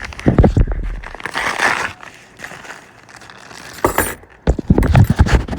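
Handling of a small metal wrench set: clattering and clinking of the wrenches in two clusters, with a rustle of packaging in between.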